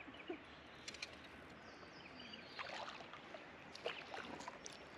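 Faint sounds of a kayak and its fishing gear being handled on the water: scattered light knocks and clicks over a steady outdoor hiss.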